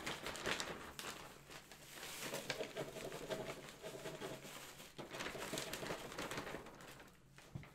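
Potting mix poured from its bag into a plastic container, a rustling, pattering pour of loose soil that tails off near the end.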